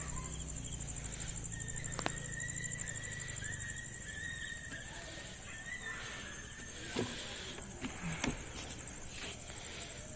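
A steady high chorus of night insects chirring, with a few sharp clicks and taps partway through.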